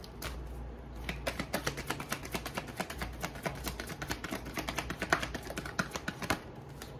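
A deck of oracle cards being shuffled by hand: a rapid run of light clicks and slaps as the cards drop from hand to hand, starting about a second in and stopping near the end.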